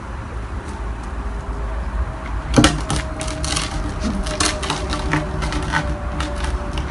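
Irregular sharp clicks and rattles from Airedale Terrier puppies scratching at a wire mesh fence. They start with one loud click about two and a half seconds in and then come a few times a second, over a steady low rumble.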